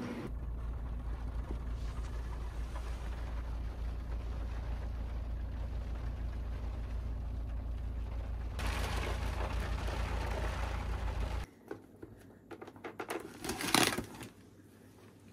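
Car cabin noise while driving in rain: a steady low rumble, with a hiss of rain joining about halfway through, which cuts off suddenly. After that come light clicks and rustling of a plastic hamster carrier being handled, with one loud clatter near the end.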